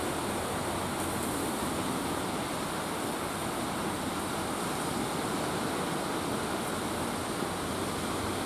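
Steady sea surf: small waves breaking and washing in against a rocky shore.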